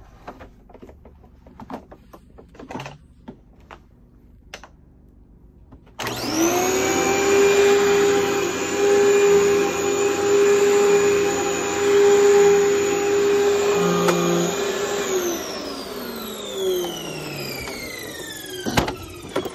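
Clear Track upright vacuum cleaner switched on about six seconds in. Its motor starts abruptly and runs with a steady whine for about nine seconds, then is switched off and winds down with a falling whine. Quiet handling clicks come before it starts, and a knock comes near the end.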